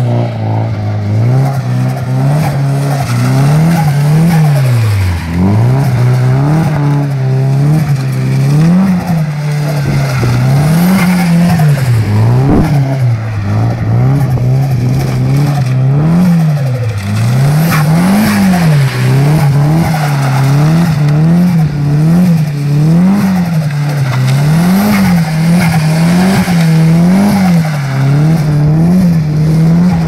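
A car engine revving up and falling back again and again as the car slides around on wet tarmac, the pitch swinging up and down every one to two seconds and faster, about once a second, near the end.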